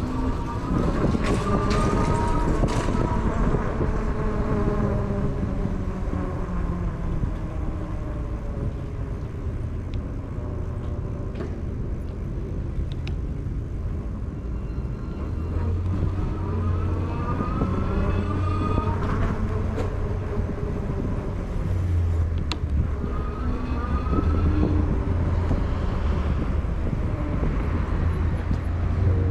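Road traffic heard from a moving bicycle on a busy street: a steady low rumble with vehicles passing now and then, their sound sweeping in pitch as they go by.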